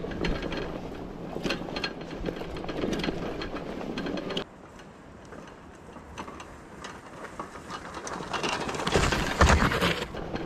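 Gotrax fat-tyre electric bike riding over a rough, rocky dirt trail: tyres crunching over gravel and stones, and the frame and rack rattling with lots of small clicks. The sound drops suddenly about halfway through, then grows louder near the end as the bike comes close.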